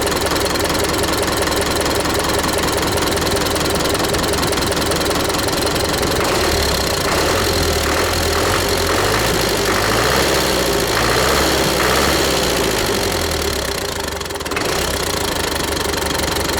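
Tractor diesel engine running after a rebuild, with its engine speed shifting up and down in the middle and a brief dip near the end. Its second-cylinder knock is gone: the knock was traced to a loose valve keeper (collet).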